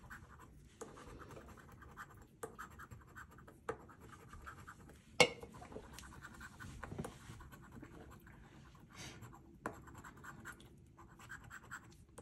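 A coin scrapes the coating off a paper lottery scratch ticket in repeated short strokes with brief pauses. There is one sharp click about five seconds in.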